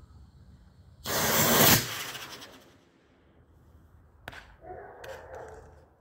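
Homemade ammonium perchlorate composite (APCP) rocket motor in a reused Estes casing firing: it starts with a sudden loud whoosh about a second in, burns for under a second and trails off over the next second as the rocket climbs away. The motor failed, with the propellant blowing itself out of the top of its casing.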